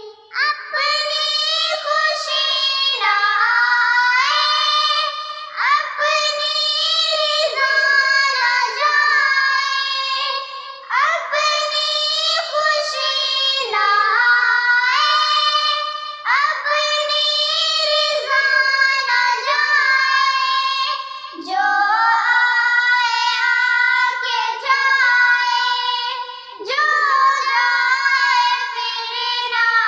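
Two young girls singing an Urdu nazam, an Islamic devotional poem, together, in sustained phrases with short breaks for breath.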